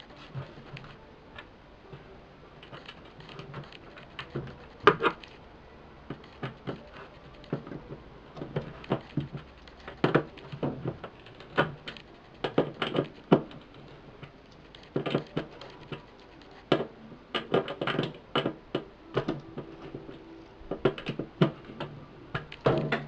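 Hands working on computer hardware: irregular clicks, taps and knocks of parts and screws, some in quick clusters, over a low steady hum.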